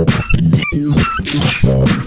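Beatboxing: a steady rhythm of deep vocal bass and sharp kick sounds, with a few short, high squeaky notes in the middle.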